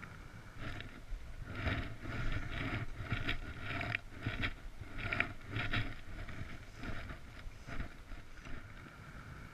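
Fly reel clicking in a string of short, irregular bursts as line is pulled off it by hand.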